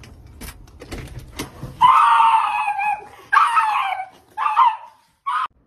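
Faint clicks of a door lock, then a pug lets out four loud, high-pitched screaming cries. The first is the longest, at about a second, and the last is the shortest.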